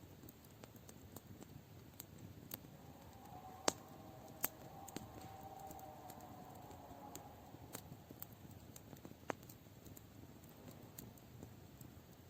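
Wood fire crackling, with irregular sharp pops over a low hiss; two louder pops come a little under a second apart about four seconds in. A faint droning tone swells and fades in the middle.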